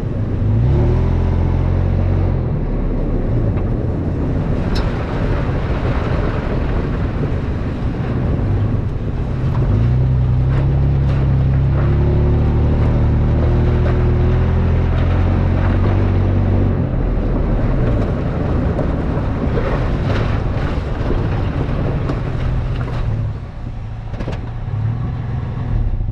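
Toyota FJ Cruiser's 4.0-litre V6 running as the truck drives a rough dirt trail, the engine note rising and falling, with scattered knocks and rattles from the truck going over bumps.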